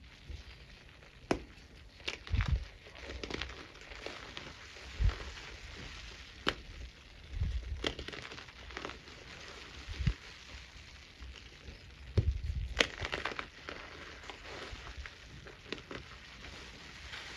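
Hands squeezing and crushing crumbly blocks of white chalk over a tray of loose powder. There is a continuous dry, fine crackling as the chalk crumbles, with a sharp crack every second or two as pieces break apart, some with a soft thump.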